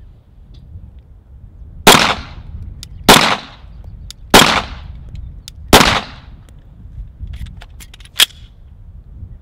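Four pistol shots about a second and a quarter apart, each echoing briefly, followed near the end by a shorter, sharp crack.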